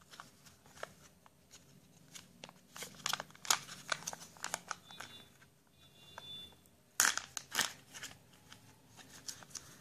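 Plastic packaging of a Kinder Joy egg's toy half crinkling and clicking as the sealed lid is peeled off and the plastic capsule inside is pried open by hand, in scattered small snaps that are loudest about three seconds in and again about seven seconds in.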